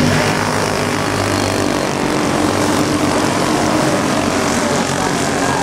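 Several racing go-kart engines running flat out on a dirt oval, a steady high buzz with pitch lines that shift as the karts pass. Loudest in the first second, while the karts are close.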